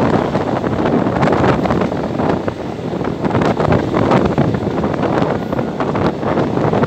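Wind rushing over a mobile phone microphone held out of a moving passenger train, with the coach's running noise on the rails beneath it.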